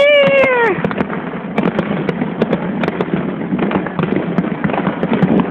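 Aerial fireworks bursting and crackling in quick, irregular succession. A long shouted voice falls away in the first second.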